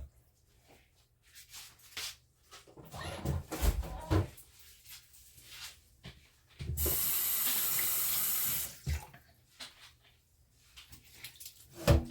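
Kitchen sink tap turned on and running for about two seconds, some seven seconds in, among scattered knocks and clatter of handling; a sharp knock near the end.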